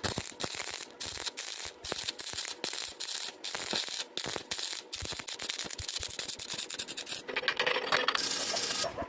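Stick (arc) welding arc crackling and sputtering in rapid irregular pops as a continuous bead is laid weaving a pipe-to-sheet joint; the crackle grows denser and louder about seven seconds in.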